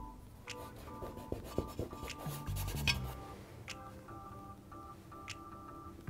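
Soft background music with held notes, overlaid between about one and a half and three seconds in by the scratchy rubbing of a small paintbrush scrubbing paint on canvas, plus a few light ticks.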